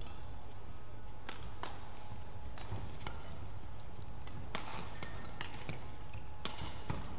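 Badminton rally: a quick series of sharp racket-on-shuttlecock hits, about one every second or less, over a steady low hum of the hall.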